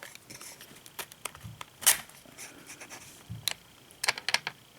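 Scattered clicks and scrapes of pliers pushing a metal tilt rod through a blind's headrail and its tilt mechanism, with the sharpest click about two seconds in and a quick run of clicks near the end.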